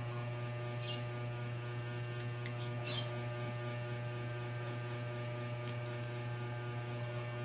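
Steady low electrical hum with many steady overtones and a faint high tone pulsing rapidly throughout; two faint, brief high-pitched sounds about one and three seconds in.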